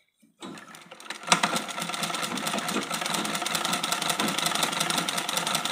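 Zenith treadle sewing machine running. A sharp click about a second in, then a rapid, even clatter as the foot treadle drives the needle through the cloth.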